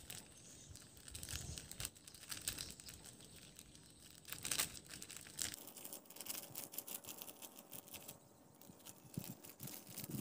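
Small plastic sachet crinkling and rustling in the fingers as seasoning is shaken from it onto a ball of fishing-bait dough, in irregular crackles with the loudest about four and a half seconds in.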